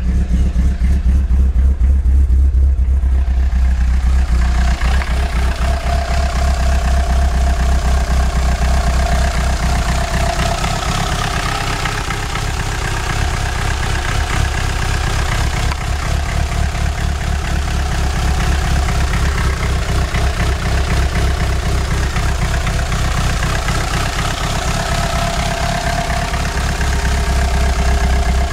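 Mitsubishi Lancer Evolution VIII's stroked 2.3-litre 4G63 turbo four-cylinder, running on E85, idling steadily at its cold-start idle without hunting. It is heard first from inside the cabin, then from beside the open hood about four seconds in, where it sounds noisier because of an exhaust leak at the downpipe.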